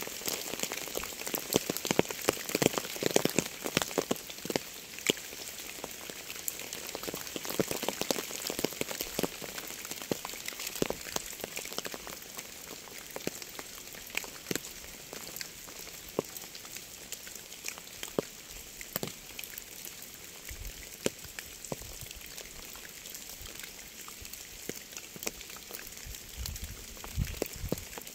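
Steady rain falling, with many separate drops striking close by over an even hiss; the drops are densest and loudest in the first few seconds, then settle to a lighter, even fall.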